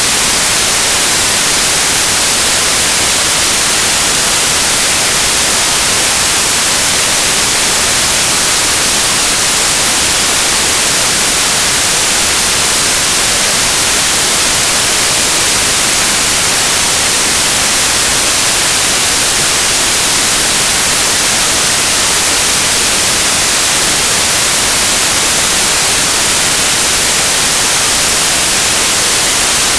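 Generated white noise test signal: a loud, even hiss that does not change, played to burn in headphone and speaker drivers.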